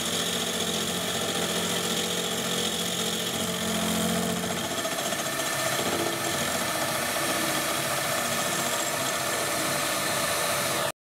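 Wabeco F1200 milling machine running, its carbide-insert end mill cutting a recess in a small metal part: a steady machine whir with cutting noise. The deep hum changes about five seconds in, and the sound stops abruptly near the end.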